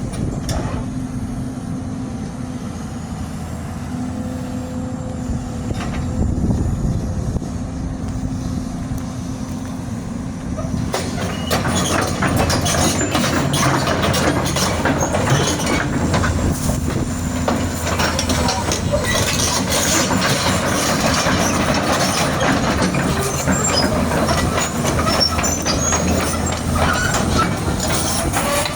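Kobelco excavator's diesel engine running steadily. About eleven seconds in, a louder, dense metallic clatter joins and continues: steel tracks clanking as the machine travels off the trailer.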